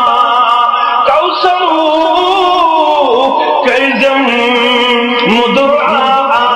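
A man's voice singing a slow, melodic religious chant, drawing out long held notes that waver in pitch, with a few gliding changes of note.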